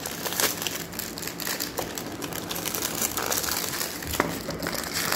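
Clear plastic packet crinkling and crackling as it is handled by hand, with many small sharp crackles.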